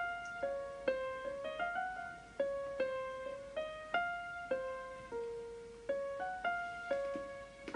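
Background music: a piano melody of single notes, each struck and then fading, two or three notes a second.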